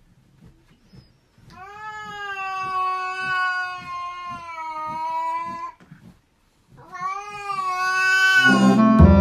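A domestic cat yowling: one long drawn-out call of about four seconds, then a second, shorter one. Music starts near the end.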